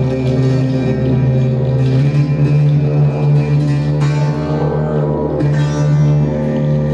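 Didgeridoo playing a steady low drone, its overtones shifting as the player shapes the sound, within live ensemble music.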